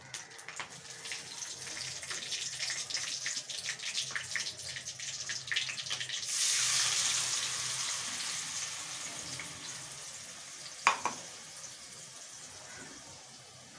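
Tempering spices crackling and spitting in hot oil in a kadhai, then about six seconds in a wet ingredient poured in from a steel vessel sets off a loud sizzle that slowly dies down. A single sharp metal clink near the end.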